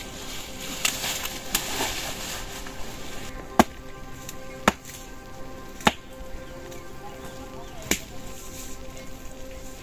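A series of sharp single strikes, six in all, roughly one to two seconds apart, like blows of a blade or tool on wood. A steady hiss runs under the first three seconds and stops, and faint steady tones sit behind throughout.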